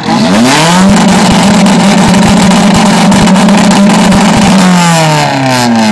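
Car engine revved hard through its exhaust: the pitch climbs quickly, is held at high revs for about four seconds, then falls back down near the end. Very loud.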